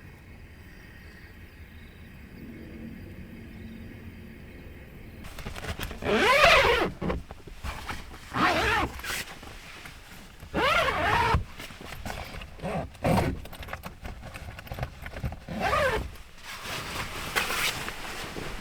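Donkey braying: a series of loud, drawn-out calls that rise and fall in pitch, repeating every two seconds or so, starting about six seconds in.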